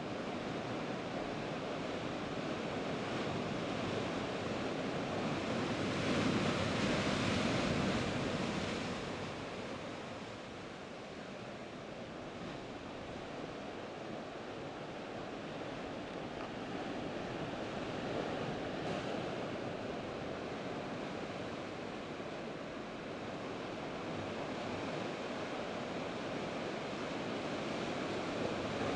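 Sea waves breaking and washing against a rocky shore, with wind on the microphone; a bigger surge swells up about six seconds in and eases off a few seconds later.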